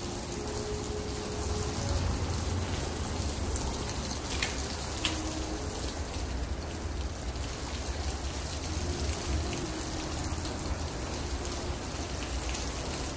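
Heavy rain beating on the building and its glass entrance doors, a steady rush with a low rumble underneath.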